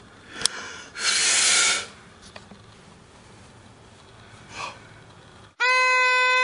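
A short breathy puff, then about five and a half seconds in a single steady note starts and is held, one unwavering pitch with many overtones.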